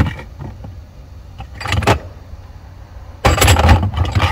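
Metal hand tools and parts being handled: a sharp click, a brief clatter, then a longer bout of rattling and scraping near the end.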